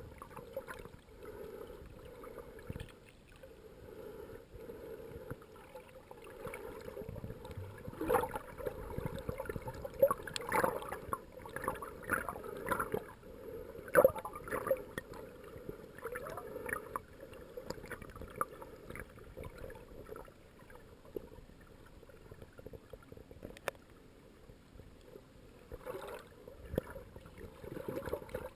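Muffled underwater ambience picked up by a camera underwater, with bursts of bubbling gurgles and a few sharp clicks.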